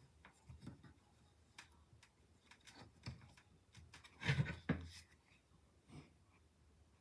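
Faint handling noises: scattered light clicks and rubbing, with a louder clatter of two close knocks about four and a half seconds in.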